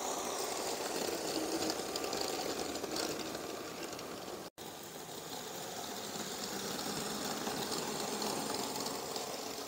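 LEGO Powered Up train motor whining as the passenger train runs, with its plastic wheels rolling over the plastic track. The sound cuts out abruptly for a moment about halfway through, then carries on.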